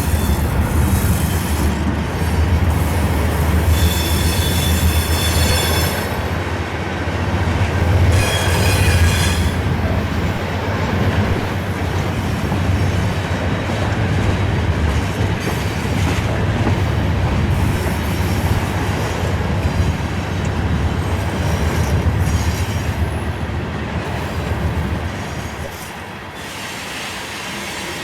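Freight train rolling past with a steady low rumble of wheels on rail, and high wheel squeal rising over it twice, around four and eight seconds in. The rumble eases off near the end.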